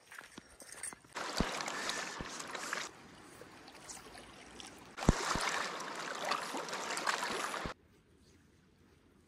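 Rushing river water, heard in two stretches of a couple of seconds each that start and stop abruptly, quieter between them and near the end, with a few short low knocks.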